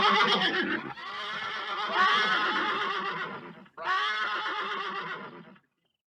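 Horse neighing: the end of one whinny, then a longer whinny about a second in and a shorter one near four seconds, each with a shaky, wavering pitch, cutting off abruptly before the end.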